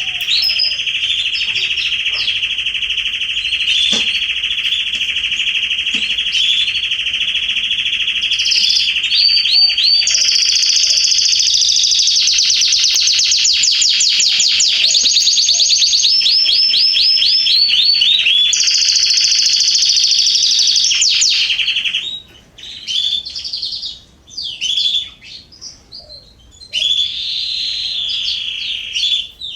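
Canaries singing: a long unbroken song with fast rolling trills in the middle. The song breaks off about three-quarters of the way through, leaving scattered short chirps, then picks up again briefly near the end.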